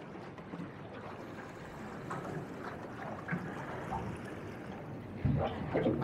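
Wind and choppy sea water against a small fishing boat's hull, a steady rushing noise, with a few faint clicks in the middle and a low thump near the end.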